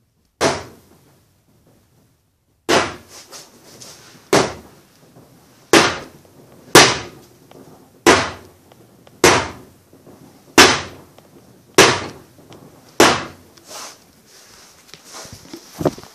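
LSSPF leaf-spring flap propulsion unit under a pedal kayak, run with no load: a sharp clack at each stroke of its steel flaps and gear linkage, ten in all, settling to about one every 1.2 seconds. Softer rattling follows near the end.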